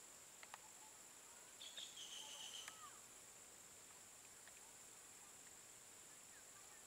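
Faint, steady, high-pitched chorus of insects, with a brief, shriller buzzing call about two seconds in.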